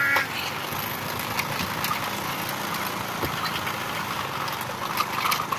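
Steady engine running and road noise of a moving vehicle, heard from on board, with a few light clicks.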